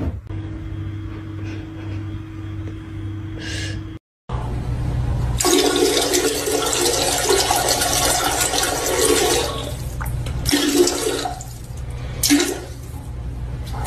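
A toilet flushing: a loud rush of water starting about five seconds in and lasting about five seconds, then fading to a quieter run of water.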